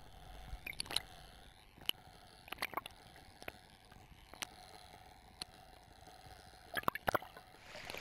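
Gentle water sounds: small splashes and gurgles, heard as scattered sharp clicks at irregular intervals over a faint hiss, with a louder cluster of them about seven seconds in.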